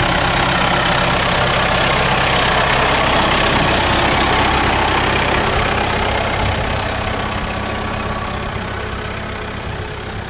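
Kubota tractor's diesel engine idling steadily, growing gradually fainter over the last few seconds.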